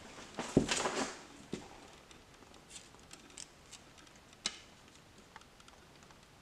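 A soft thump and a second of clothing rustle as someone steps up close, then faint crackles and small clicks of tape and paper as a taped-up photograph is peeled off a wall.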